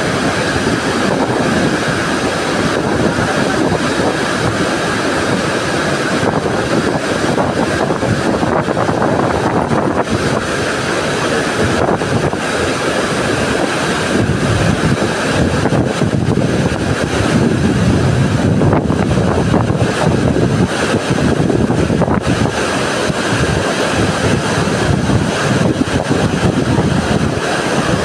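Large waterfall in heavy, muddy flow: a loud, steady rushing of falling water that never lets up.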